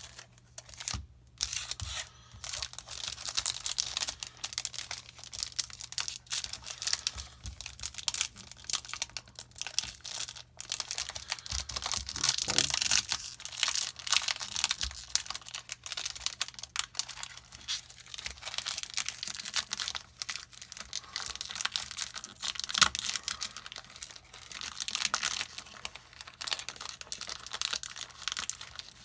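Plastic booster-pack wrapper crinkling and tearing as it is worked open by hand, an uneven crackle that swells and fades; the wrapper is proving hard to open.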